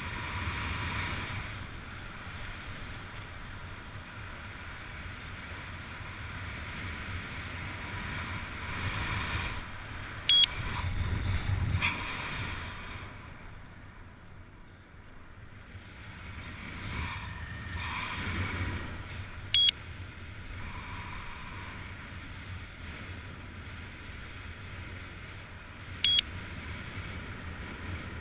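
Wind rushing over a helmet-mounted microphone during a parachute descent under canopy, with short high electronic beeps three times, about ten, twenty and twenty-six seconds in, typical of a skydiver's audible altimeter.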